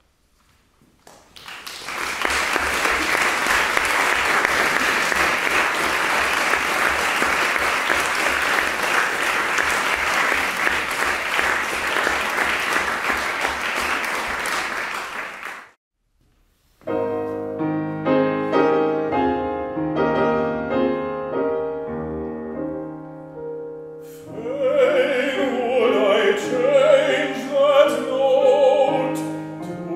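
Audience applauding for about fourteen seconds. After a short silence a piano introduction begins, and about seven seconds later a baritone starts singing over it with a wide vibrato.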